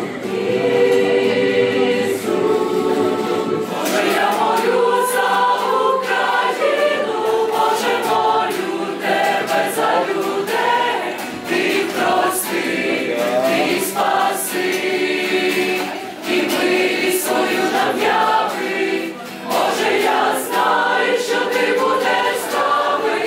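A choir singing a hymn, many voices together in a steady stream of song.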